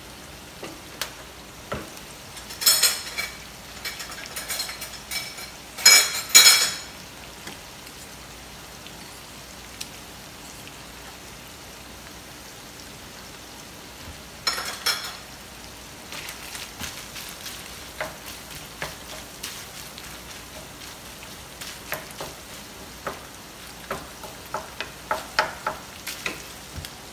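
Onion and tomato sauce base sizzling steadily in a frying pan, stirred with loud scraping strokes in the pan about 3 and 6 seconds in and again around 15 seconds, then lighter scattered clicks of the utensil against the pan.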